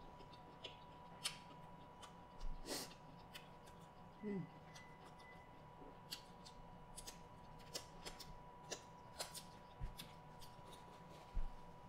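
A person chewing a shrimp with her mouth closed: a scattered string of soft mouth clicks and lip smacks. About four seconds in there is one short vocal sound that falls in pitch.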